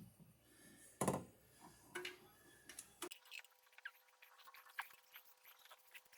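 Faint, irregular clicks and light knocks of hand tools at work in an engine bay as a spark plug is fitted, with two slightly louder knocks in the first two seconds.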